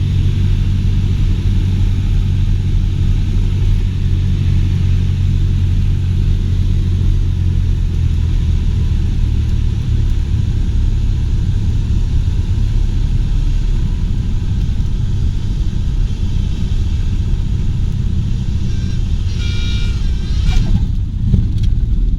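Cessna 172's piston engine droning steadily in the cockpit on final approach; its low hum loosens and becomes rougher about nine seconds in. Near the end comes a short high-pitched tone and then a sharp thump.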